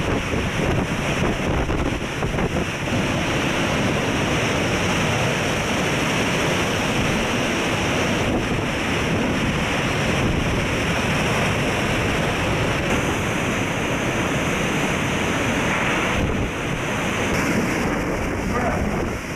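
Hurricane-force wind with wind-driven rain, a steady loud rush with heavy wind noise on the microphone.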